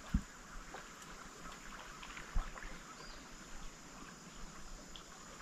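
Quiet outdoor ambience: faint, scattered animal chirps over a steady hiss. Two short, dull low thumps come just after the start and about two and a half seconds in.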